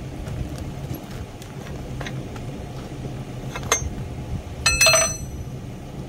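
A machine's engine idling steadily, with a faint click and then, about five seconds in, a sharp metallic clink that rings briefly, metal struck against metal.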